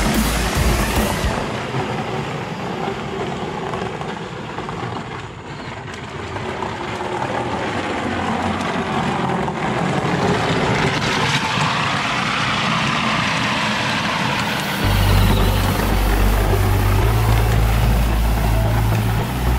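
Background music with a heavy bass beat that drops out about a second in and returns near the end. In the quieter stretch between, a steady whirring noise from the 12-volt electric ride-on toy quad's motor and plastic tyres rolling on asphalt.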